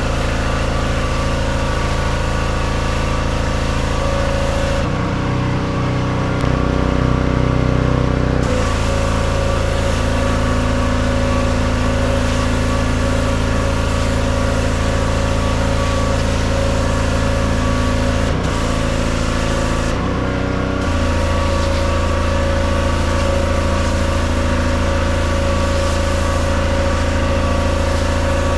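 Pressure washer's engine running steadily under the hiss of the high-pressure spray on a vinyl fence. The hiss drops out for a few seconds about five seconds in and again briefly about twenty seconds in, and the engine note shifts each time.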